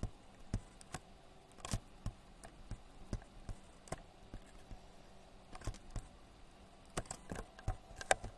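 Scattered, irregular sharp clicks from working a computer, about one or two a second.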